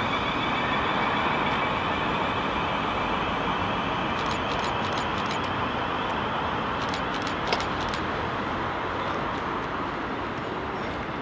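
Class 444 Desiro electric multiple unit pulling away from the platform: a steady electric whine over wheel-and-rail noise, with a few sharp clicks in the middle, slowly fading as the train draws away.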